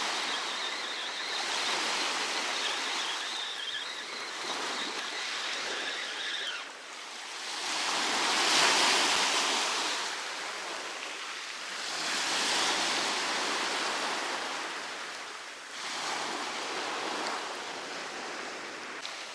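Sea surf on a beach: waves washing in and drawing back in slow swells, the loudest about halfway through.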